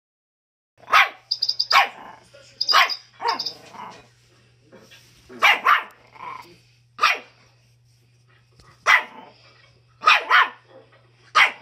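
Young Schipperke barking again and again: about ten sharp barks, some single and some in quick pairs, with short pauses between them.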